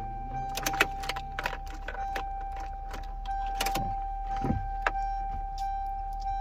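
Sharp clicks and knocks from an attempt to crank a Toyota Corolla AE92 over a steady high-pitched tone, with no cranking heard. The starter does not engage, the symptom of a faulty or misadjusted neutral safety switch.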